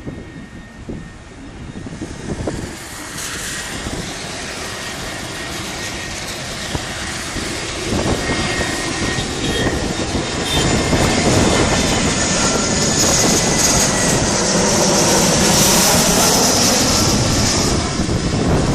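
Jet airliner passing low on final approach to land: engine noise that grows louder over the first ten seconds or so, with a high-pitched whine, and stays loud until easing slightly near the end.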